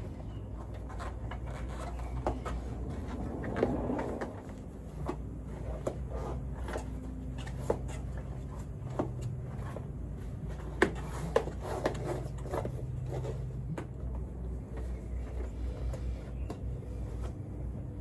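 Knobbly rubber bike tyre being worked onto a wheel rim by hand: scattered clicks, knocks and rubbing of rubber against the rim and spokes. A steady low hum runs underneath.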